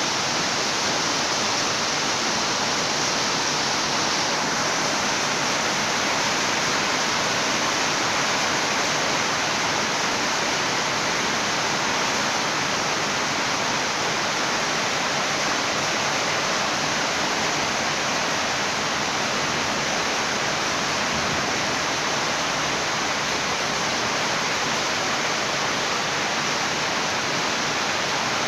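Steady, heavy rainfall: an even, unbroken hiss with no thunder or separate drops standing out.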